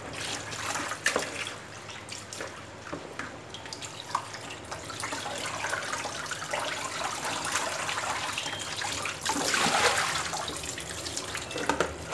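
Water splashing and sloshing as raw chicken pieces are rinsed by hand in a bowl of water in a sink and lifted into a plastic colander, with small knocks and drips throughout. There is a louder rush of water about nine seconds in.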